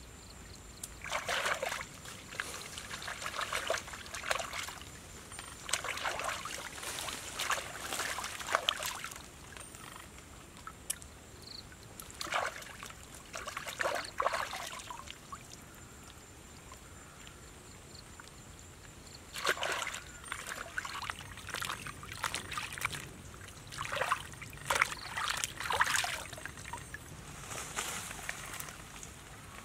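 Shallow water splashing and sloshing in irregular bursts of one to three seconds, with quieter stretches between.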